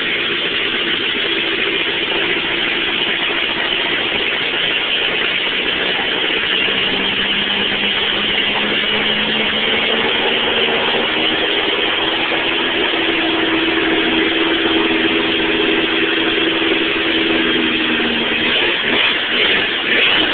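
Car engine running steadily and loud through only a 4-into-1 exhaust header with no rest of the exhaust or muffler fitted, rumbling deep. Its pitch drifts slightly up and down.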